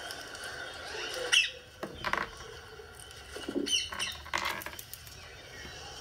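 Rose-ringed parakeet giving a handful of short chirps and squawks, spaced out over several seconds, the loudest about a second and a half in.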